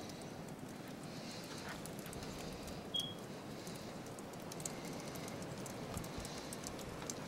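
Faint outdoor ambience of a snowy yard: a steady low hiss with scattered small ticks and one short, high chirp about three seconds in.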